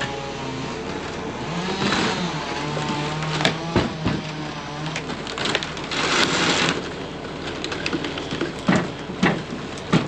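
Loader's engine running with its speed rising and falling as it works, with a few sharp knocks about three and a half to four seconds in and a short rushing noise about six seconds in.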